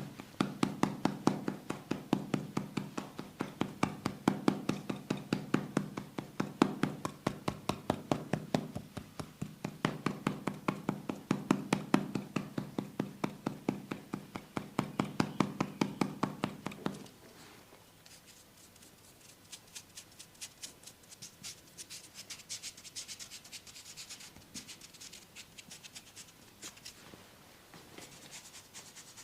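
Massage percussion: hands striking skin in a fast, even rhythm, several slaps a second. A little over halfway through it changes to softer, lighter tapping and rubbing.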